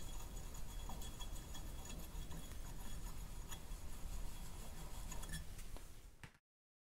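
Faint light clicks and ticks of a small hand tap in a T-handle tap wrench being turned in a Farmall M carburetor body, chasing the threads of a jet hole clean after the old brass jet was drilled out, over a low steady hum.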